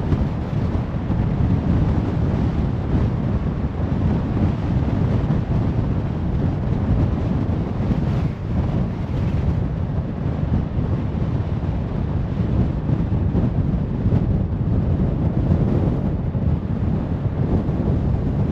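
Steady road noise of a car cruising on a motorway: an even low rumble of tyres and wind, with no distinct events.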